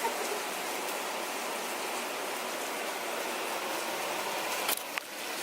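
Shaved steak for cheesesteaks sizzling in a hot frying pan, a steady hiss, with two sharp clicks near the end.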